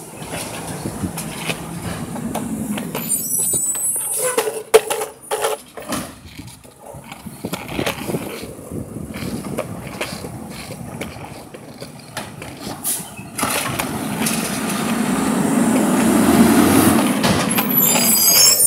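Heil automated side-loader garbage truck working a cart: the diesel runs while the arm lifts and dumps, with clanks and one sharp loud bang about five seconds in. The engine then revs up for several seconds as the truck pulls ahead, and a high brake squeal comes at the very end.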